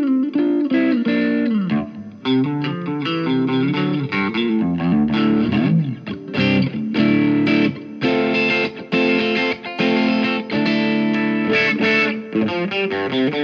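Electric guitar played through a Vox AC15C1 valve amp with its Tone Cut knob fully open and a Nobels overdrive pedal set to very low gain, giving a nearly clean, lightly broken-up tone. It plays picked single-note lines and chords with a few pitch slides.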